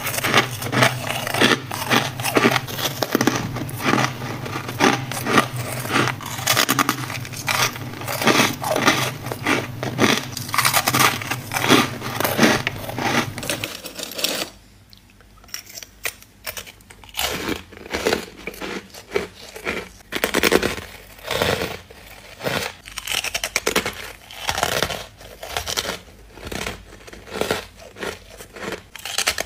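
Soft, powdery freezer-frost chunks being bitten and crunched in the mouth: a rapid run of crisp, grainy crunches. About halfway through, the crunching stops briefly, then comes back in more spaced, slightly quieter bites. A low steady hum sits under the first half.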